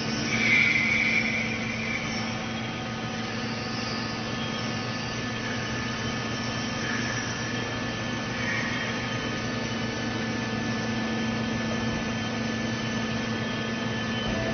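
Hydraulic straw baling press running, with the steady even hum of its electric motor and hydraulic pump. A brief louder high-pitched hiss comes about half a second in.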